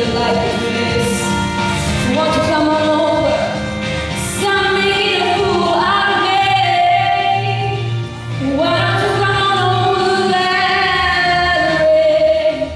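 A young woman singing a song solo into a handheld microphone over instrumental accompaniment, holding several long notes.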